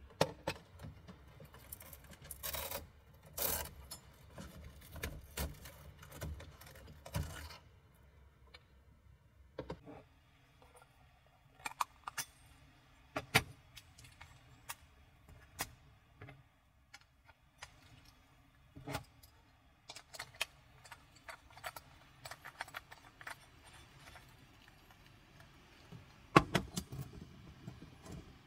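Clicks and light metallic clinks of a small gas-stove burner being handled and fitted onto a gas canister. The handling noise is dense for the first several seconds, then turns into sparse single clicks, with a short cluster of louder clicks near the end.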